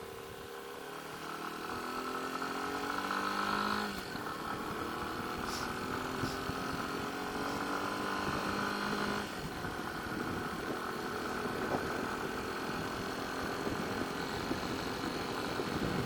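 Yamaha Serow's single-cylinder engine under way, rising in pitch as it accelerates, dropping at a gear change about four seconds in, rising again through the next gear to another shift near nine seconds, then holding a steady pace.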